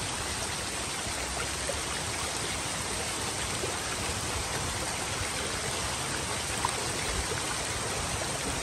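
Shallow stream running over stones, a steady rushing babble of water, with a couple of faint ticks about two-thirds of the way through.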